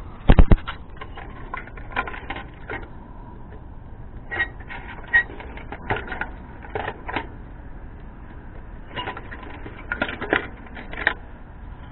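Irregular clicks and taps of wire spade connectors being pulled off and pushed onto the terminals of a heat pump defrost control board, with a quick run of louder knocks about half a second in.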